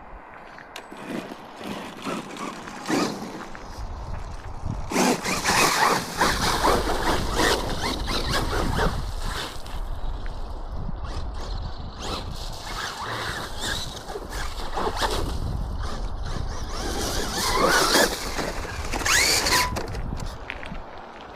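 Arrma off-road RC car driving over rough ground. Its electric motor whines, rising and falling in pitch, under the rumble and rattle of the tyres and chassis, which get louder about five seconds in.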